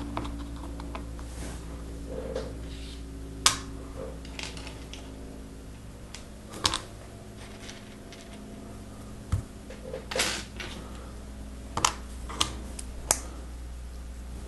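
Lego Technic plastic pieces clicking and clacking as parts are handled and pressed together, several sharp irregular clicks a second or more apart.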